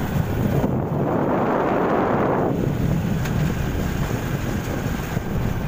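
Wind buffeting the microphone over the steady running of a motorcycle with a sidecar on the move, with a stronger gust lasting about two seconds near the start.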